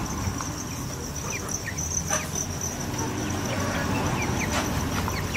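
Young chickens giving short, falling peeps every half second or so, over a steady high-pitched insect drone.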